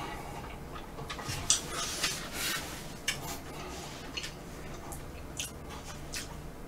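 Close-miked eating sounds: chewing ice cream with scattered small wet mouth clicks, and a wooden spoon scraping and scooping soft, melting vanilla ice cream off a tray.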